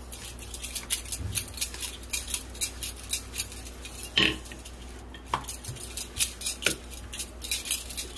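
Wooden rolling pin rolling out dough on a granite countertop: a run of quick, light clicks and taps, with a few louder knocks about four, five and a half and nearly seven seconds in.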